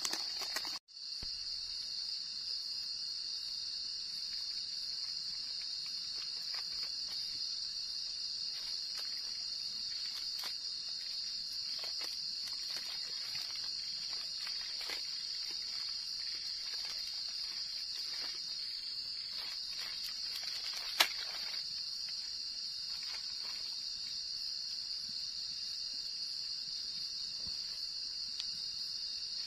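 Steady high-pitched chorus of night insects such as crickets, holding one even pitch throughout, with faint scattered clicks and one sharp click about 21 seconds in. The sound drops out briefly just under a second in.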